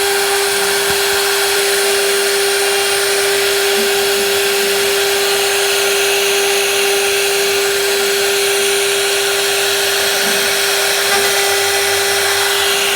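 High-speed wood router spindle running steadily under load, with a single unbroken high whine over a continuous hiss of cutting noise.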